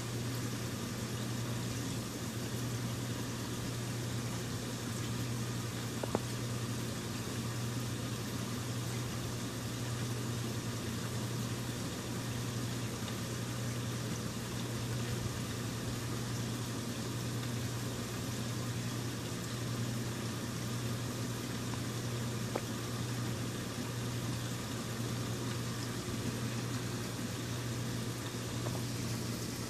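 Aquarium equipment running: a steady low pump hum under an even wash of moving, bubbling water, with a few faint clicks.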